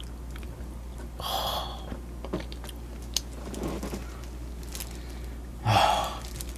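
Quiet eating sounds: a plastic-gloved hand handling a rolled piece of chive pancake, with faint clicks and a short breathy sound about a second in. Near the end comes a louder breathy sound as the pancake is bitten. A steady low hum runs underneath.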